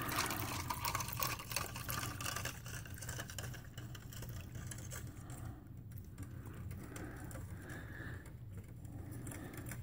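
Water poured from one plastic cup into another holding powdered drink mix while a plastic MRE spoon stirs it, with light rapid ticking and scraping of the spoon against the cup. The pouring and clicking are densest in the first few seconds, and the stirring goes on more faintly after.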